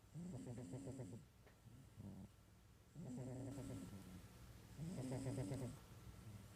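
A sleeping cat snoring: three long, rhythmic snoring breaths of about a second each, with a brief softer one between the first two.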